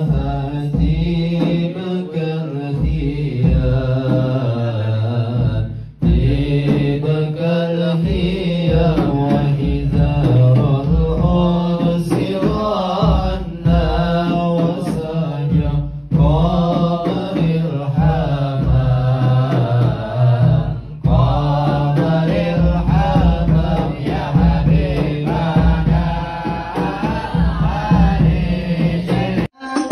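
A young man singing sholawat, an Islamic devotional chant, in a slow, ornamented melody over a steady low drone. The sound breaks off briefly two or three times.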